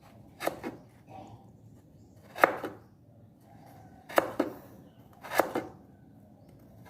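A kitchen knife slicing a block of palm sugar (gula Jawa) thinly on a cutting board: about six separate cuts at an uneven pace, some in quick pairs.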